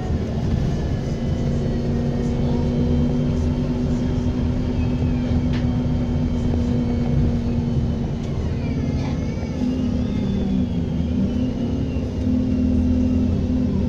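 Bus diesel engine running with a steady low drone and a thin, high turbocharger whistle above it; the whistle slides down in pitch in the second half.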